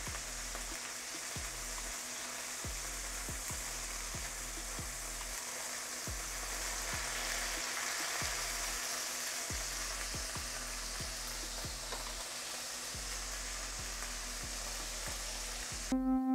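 Thin beef steak fillets frying in hot olive oil in a nonstick pan: a steady sizzle with scattered crackling pops of spattering oil, the sound of the meat searing rather than stewing. Music starts right at the end.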